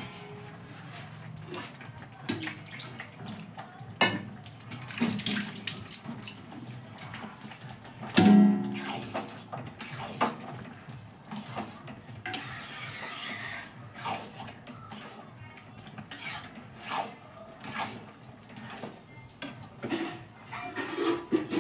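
A long metal spatula scraping and knocking against a large aluminium kadai as thick khichuri is stirred: irregular clinks and scrapes, with louder knocks about four and eight seconds in.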